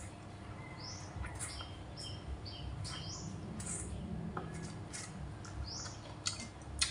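A person eating up close, chewing a mouthful of rice and fish with wet clicks and lip smacks. Short, high, rising chirps come every half second or so through most of it.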